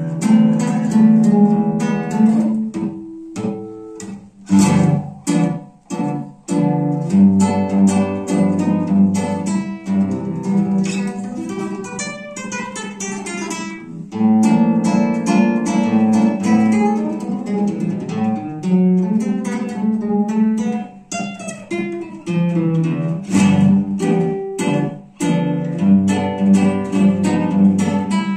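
Solo nylon-string classical guitar playing a tango: plucked melody notes over bass notes, with several sharp percussive chord strikes and a fast run of notes about halfway through.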